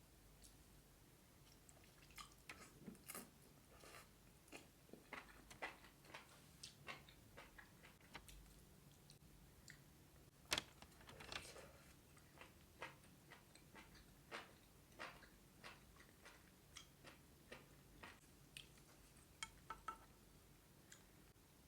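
A person chewing food close to the microphone: many soft, wet mouth clicks and smacks at an uneven pace, with one sharper click about ten seconds in.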